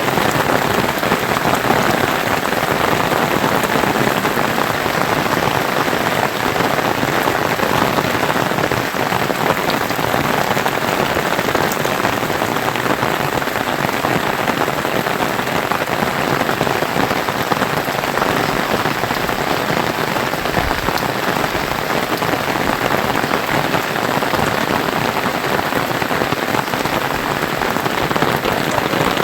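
Steady rain falling, a dense patter of many drops with no letup.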